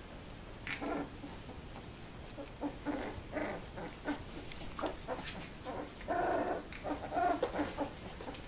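Two-week-old Labrador retriever puppies squeaking and whimpering in a run of short, high calls, with a longer whine about six seconds in.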